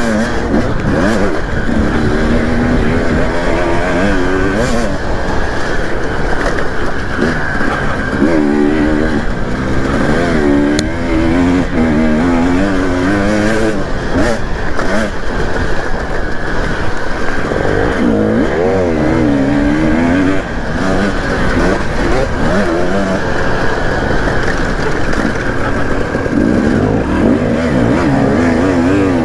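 Dirt bike engine ridden hard around a motocross track, heard from on board: the revs climb and drop over and over as the rider accelerates and shifts, over a steady rushing noise.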